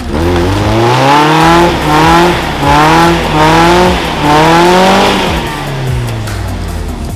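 Suzuki Grand Vitara engine revved hard in about five rising-and-falling surges, as the 4x4 works the throttle to get traction on a slippery mud climb. The revs settle lower near the end.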